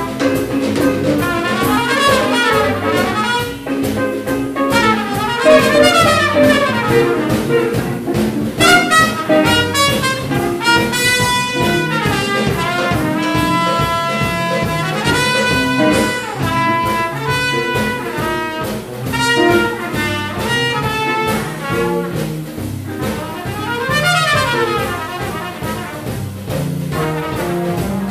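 Live jazz quartet playing: a brass horn carries the melody over guitar, bass and drums. The horn moves through quick runs and holds several long notes about halfway through.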